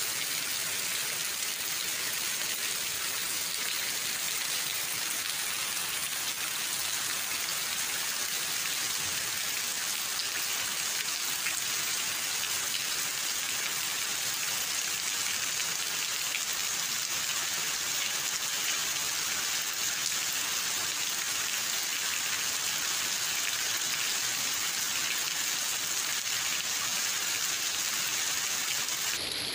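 Steady rain falling on a concrete ledge and garden leaves, an even hiss with no breaks. Its tone changes abruptly at the very end.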